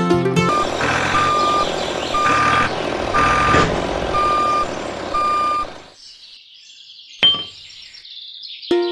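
Reversing alarm beeping about once a second, six beeps at one steady pitch, over a noisy engine-like rumble. The beeping stops after about six seconds, and a single sharp click follows.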